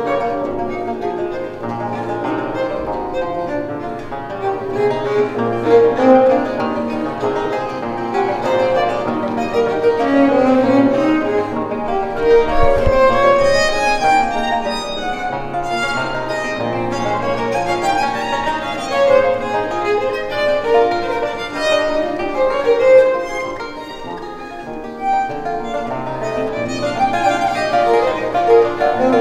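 Baroque violin and long-necked lute playing together: a bowed violin melody over plucked lute accompaniment.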